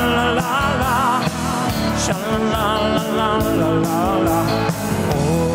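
Music: a song with a singing voice over instruments and a steady drum beat.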